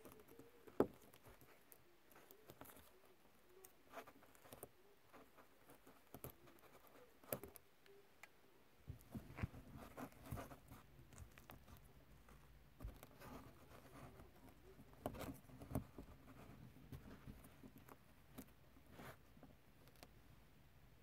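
Faint handling noise: small clicks and rustles of fingers working a wire and its small plastic connector. A low rumble joins underneath about nine seconds in.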